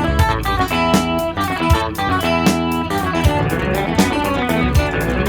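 Music led by electric guitar, with bass and a steady beat.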